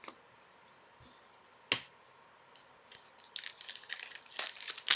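A single sharp tap, then from a little past halfway a continuous rapid crinkling and tearing of a plastic hockey card pack wrapper being handled and opened.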